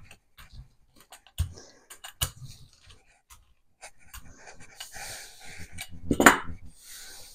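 Rubber hand brayer rolled and pressed over the back of paper laid on a gel printing plate: scattered knocks and clicks in the first few seconds. Then a longer stretch of paper rubbing and rustling, loudest about six seconds in.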